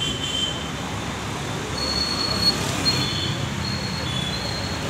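Road traffic running past as a steady hum, with a thin high-pitched squeal that comes and goes for a couple of seconds in the middle.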